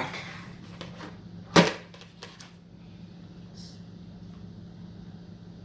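A single sharp knock of a hard object set down on a tabletop about a second and a half in, followed by a few faint clicks, while slime ingredients are being mixed with a fork.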